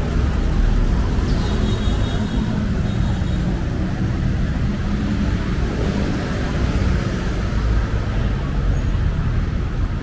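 Steady city road traffic: a low rumble of vehicle engines and tyre noise from cars and buses passing along a busy boulevard.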